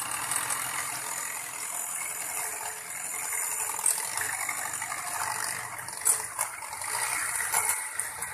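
Electric hand mixer beating eggs in a bowl, running steadily.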